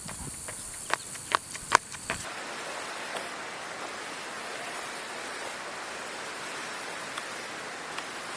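Outdoor nature ambience: a steady hiss, with insects chirring in a very high band that switches on and off every second or two. A few sharp clicks come in the first two seconds, before the hiss cuts in.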